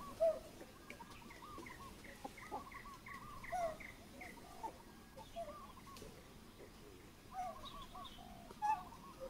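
Faint birdsong: short warbled phrases repeated over and over, with a run of quick, evenly spaced chirps a couple of seconds in and a few louder single calls.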